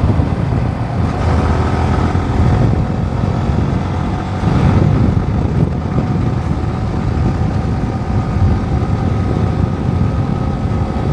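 Yamaha R15 V4 motorcycle on the move: its single-cylinder engine running at a steady cruise under a constant rumble of wind and road noise.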